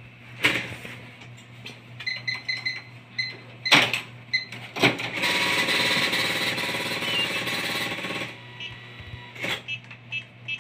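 Card payment at a counter: a few sharp knocks and a run of short, high keypad beeps, then a receipt printer printing a slip for about three seconds, the loudest part, followed by more quick beeps near the end.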